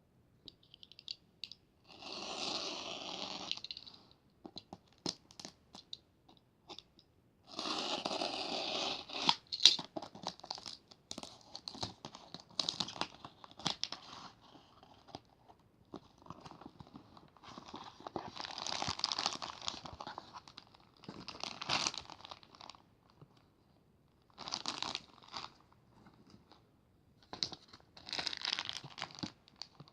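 Packaging being unwrapped by hand: crinkling, crunching and tearing in about half a dozen bursts, the longest near the start and about eight seconds in, with small rustles and clicks between.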